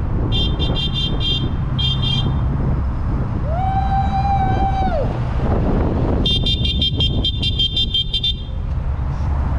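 Kawasaki sport bike engine idling steadily. Over it come quick trains of high-pitched chirping beeps twice near the start and again for about two seconds past halfway, and a single held tone lasting about a second and a half around the middle.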